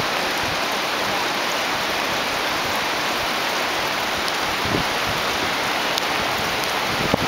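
Steady rain, an even rushing hiss, with a few sharp drops tapping close by, the loudest near the end.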